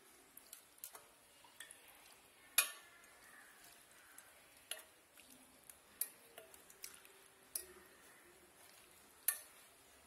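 Steel ladle and spoon clinking against a stainless steel pot and plate as food is served: about ten sharp clinks, some ringing briefly, the loudest about two and a half seconds in.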